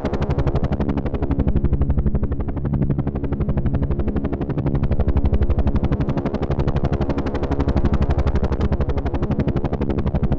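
Helicopter rotor thudding in a rapid, steady beat of blade pulses over a low drone, swelling and easing slightly in loudness.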